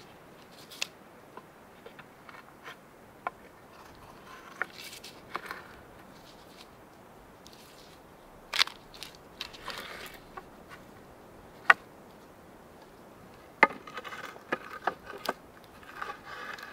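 Dry wooden poles knocking and scraping against each other and against wooden stakes as they are stacked into a log fire-reflector wall, with irregular sharp wooden clacks, the loudest about two-thirds of the way through, and short stretches of bark rubbing in between.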